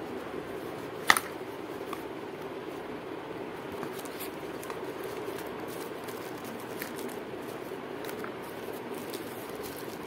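Paper and cardboard phone packaging being handled: faint rustles and small ticks, with one sharp click about a second in, over a steady background hum.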